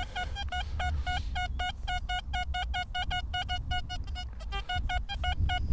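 XP Deus II metal detector giving a rapid run of short, high beeps, about five a second, pausing briefly near the end, as the coil sweeps back and forth over a non-ferrous target lying between iron signals and reading about 70.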